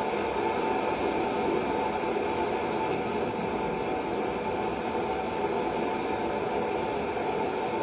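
Electric fan running at a steady speed: an even rush of air with a faint constant hum.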